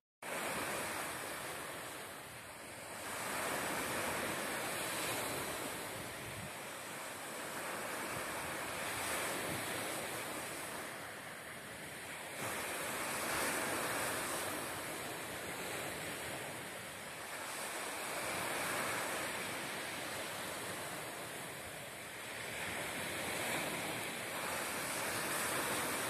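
Black Sea surf washing onto the shore, a steady rushing noise that swells and eases every four to five seconds as the waves come in.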